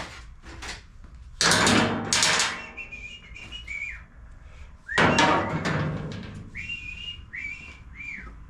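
Tools and parts clattering and scraping as clutter is shoved aside on a workbench, two loud bursts of about a second each. Between and after them a man whistles a few short notes that slide down at their ends.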